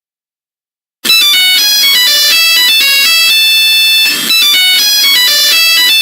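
Loud meme sound effect: a fast electronic melody of stepping notes that changes pitch several times a second, bursting in suddenly out of dead silence about a second in, with a brief drop near the middle.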